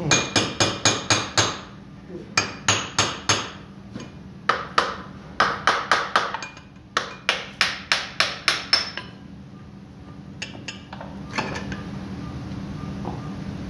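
Runs of quick, ringing metal hammer blows, several strikes in a row with short pauses between, on a bolted cover inside a Mercedes-Benz Actros truck gearbox, tapping it loose during dismantling. The runs stop about two-thirds of the way through, and a few lighter knocks follow.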